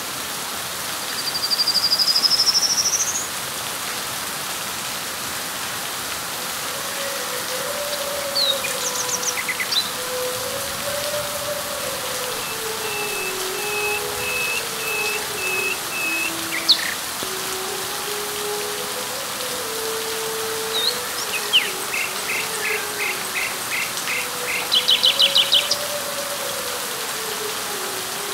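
Steady rain falling on leaves, with birds calling over it: a loud rising whistle about two seconds in, scattered chirps, runs of repeated short notes in the second half, and a quick burst of notes near the end. A low wavering tone rises and falls beneath the rain from about six seconds in.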